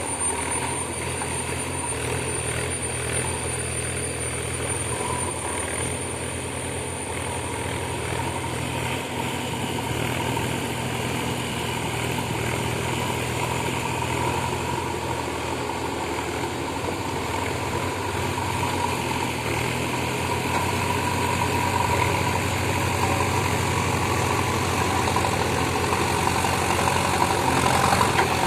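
Diesel engine of a JCB digger running steadily, with a steady higher whine over it; it grows gradually louder over the last third.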